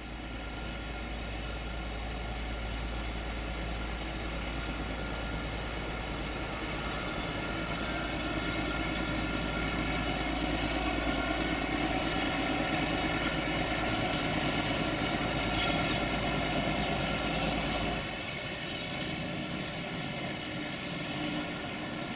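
A locomotive's machinery humming steadily, made of many even tones. It slowly grows louder, then its deepest rumble stops abruptly about 18 seconds in.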